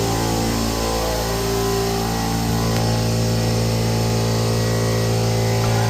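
An engine running steadily at a constant pitch, a level drone that does not change.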